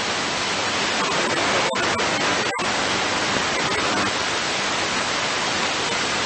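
Steady hiss of static from an airband radio receiver between transmissions, with two momentary dropouts about two seconds in.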